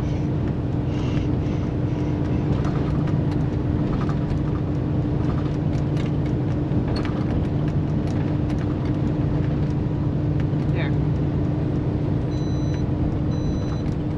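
Steady engine and road drone inside a moving semi truck's cab, with a constant low hum. Near the end, a short high electronic beep repeats about once a second.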